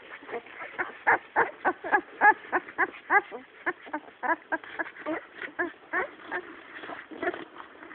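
Five-day-old Great Dane puppies squeaking and whimpering, a quick run of short, high cries several a second. The cries are loudest in the first half and turn fainter and sparser later.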